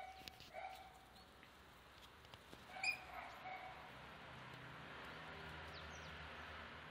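A puppy's short high-pitched yips, about four in the first half, the loudest about three seconds in, followed by a steady faint hiss.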